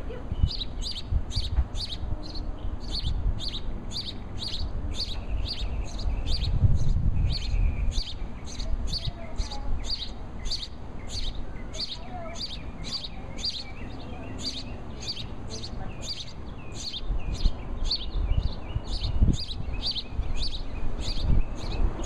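House sparrow chirping: a steady run of single short cheeps, about two a second, repeated without a break.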